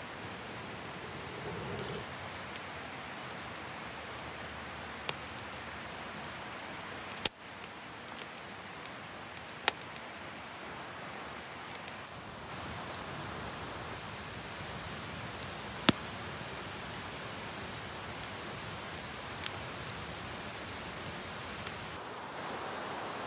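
Small kindling fire of wood shavings and split sticks crackling, with a handful of sharp, separate pops over a steady hiss.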